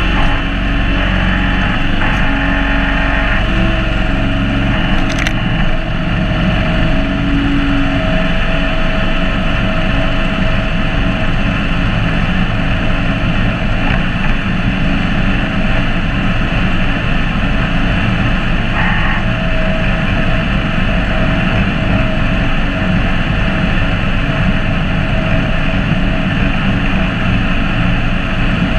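A John Deere X728 garden tractor's engine runs steadily while it drives carrying a log in its front grapple, heard close up from the hood. A few light knocks come through.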